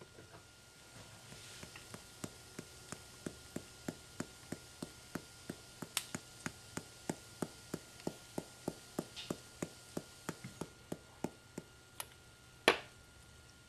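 Light, regular tapping on a small metal mesh strainer sifting matcha powder onto a plate, about three taps a second, ending with one louder click near the end.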